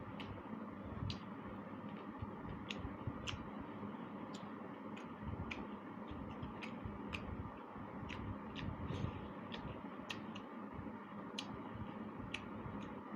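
Close-up eating sounds: wet mouth clicks and lip smacks while chewing, coming irregularly at about two a second over a steady low background hum.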